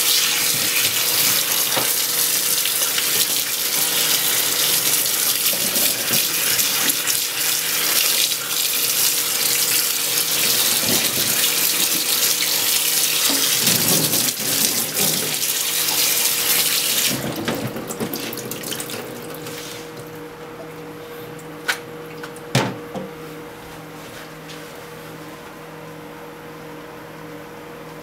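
Kitchen tap running full onto edamame pods in a plastic colander in a stainless steel sink, the water splashing over the pods and the sink basin. The flow stops a little over halfway through and the splashing dies away, followed later by two sharp knocks close together.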